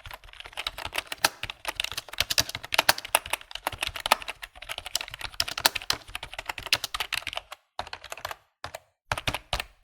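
Fast typing on a computer keyboard: a dense run of key clicks that breaks off about three-quarters of the way through, then a few shorter clusters of keystrokes with pauses between them near the end.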